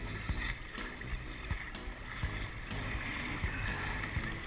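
Choppy sea water slapping and splashing against a plastic sit-on-top kayak as it is paddled through swell, with wind buffeting the camera microphone and irregular knocks from the chop.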